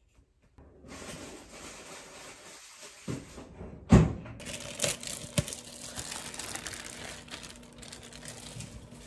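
Thin plastic wrapping crinkling and rustling as it is handled. There is one sharp knock about four seconds in, as a plate is set down on the wooden counter, and a couple of lighter clicks after it.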